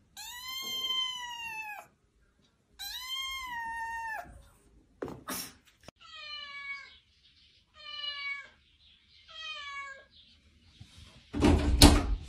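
A kitten meowing twice in long, high cries. After a few clicks come three shorter, lower cries that fall in pitch, and near the end a loud knock and rustle.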